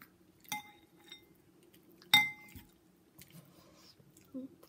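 Metal spoon clinking against a ceramic serving bowl, two ringing strikes: a lighter one about half a second in and a louder one just after two seconds, with a few faint taps between.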